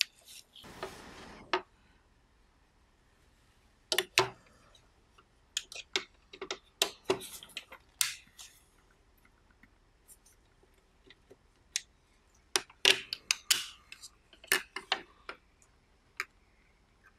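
Plastic case and parts of a Panasonic RQ-2730 cassette recorder being handled and taken apart: scattered light clicks, taps and knocks of plastic pieces, with a short scraping rustle about a second in.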